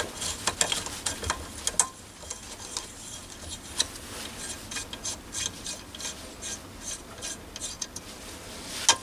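A hex key working a stainless steel Allen bolt loose from a brass part clamped in a bench vise: a run of small, irregular metallic clicks and scrapes, with a slightly louder clack near the end.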